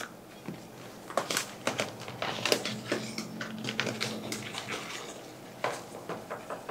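Dry cake mix poured from a stainless steel mixing bowl into a plastic zipper bag: crinkling plastic with light scrapes and taps on the bowl.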